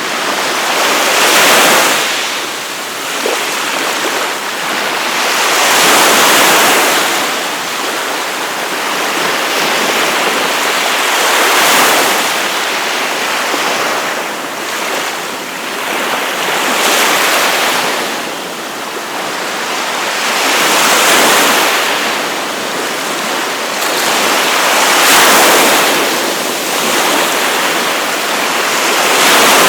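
Ocean surf breaking on a beach, a steady wash of water noise that swells and eases about every five seconds as each wave comes in.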